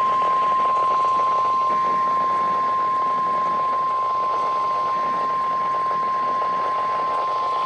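NOAA Weather Radio warning alarm tone: one steady, unbroken tone at about 1 kHz (the 1050 Hz alert tone), sounded as part of the required weekly test, with a faint hiss behind it.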